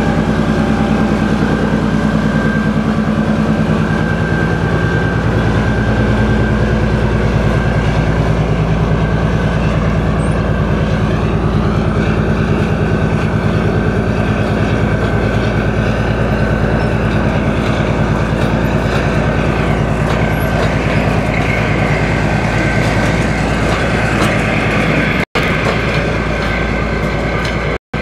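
Soviet-era D1 diesel multiple unit passing close by, its diesel engine running steadily with wheels rolling on the rails. The sound cuts out abruptly twice near the end.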